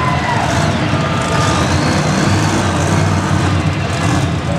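Monster truck engines running with a loud, steady low rumble in an indoor arena.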